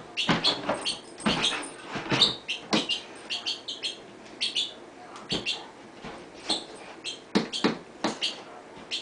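Alaskan Malamute prying with her teeth at the rim of a plastic barrel's lid: irregular clicks and squeaky scrapes of teeth on hard plastic, several a second, with a lull around the middle.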